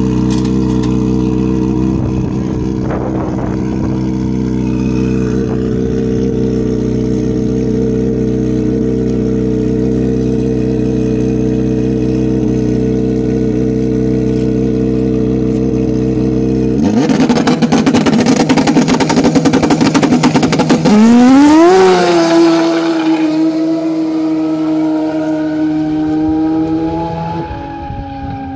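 Yamaha Apex drag snowmobile's engine running steadily at the start line, then a sudden loud full-throttle launch about 17 seconds in. The pitch climbs sharply a few seconds later, then holds a high steady note that slowly drops and fades as the sled runs off down the strip.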